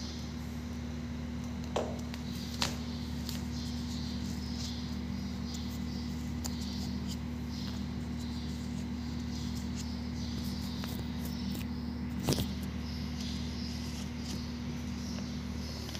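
A Swiffer Sweeper mop head being fitted with a dry cloth: faint rustling of the cloth and a few sharp plastic clicks, the loudest about twelve seconds in, over a steady low hum.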